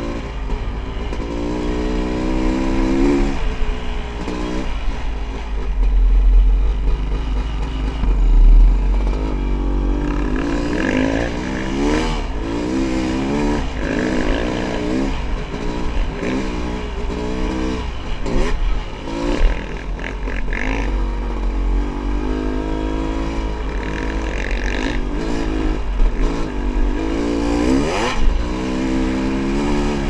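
Honda CR500 two-stroke single-cylinder dirt bike engine revving up through the gears and dropping back again and again while riding. Heavy wind rumble on the helmet-mounted microphone runs underneath and is strongest about a quarter of the way in.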